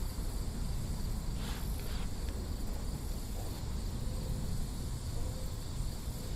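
Insects chirring steadily in a high, even drone, over a constant low rumble of outdoor background noise.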